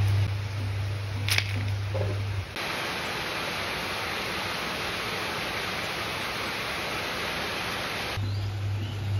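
Heavy rain pouring down steadily, cutting in abruptly about two and a half seconds in. Before it, and again near the end, background music plays.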